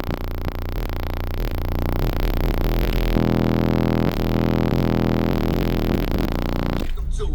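Bass-heavy electronic music played loud through a car audio system with twenty-four 10-inch subwoofers: deep sustained bass notes that shift to a new note about three seconds in and break off briefly near the end.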